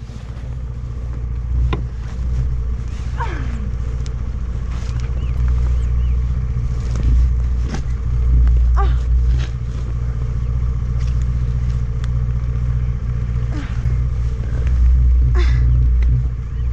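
A tipped-over motor scooter's engine idling steadily, with scattered knocks and scrapes and a few short strained vocal sounds as the rider works to pull her trapped foot free from under the fallen scooter.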